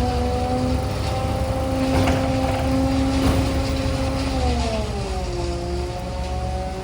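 Engine speeding up, running steadily at the higher speed for about four seconds, then slowing back down, with a couple of faint knocks midway.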